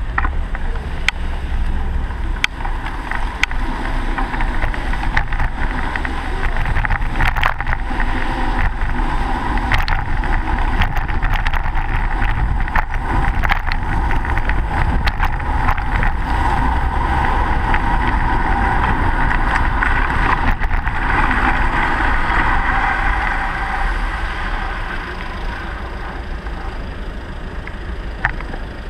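Riding a bicycle through city traffic on wet streets: a steady rush of wind and tyre noise with frequent small knocks and rattles from the bike, and cars alongside. The rush grows louder about two-thirds of the way through, then eases near the end.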